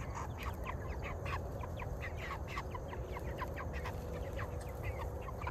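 A flock of meat chickens peeping and cheeping, many short high calls, several a second, overlapping, over a steady low rumble.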